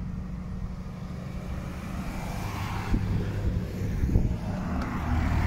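Car engines running with a steady low drone, growing louder about halfway through as a car drives past.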